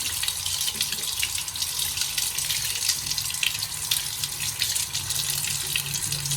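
Water running steadily from a tap into a sink, splashing as the two doddapatre (Indian borage) leaves are rinsed under it.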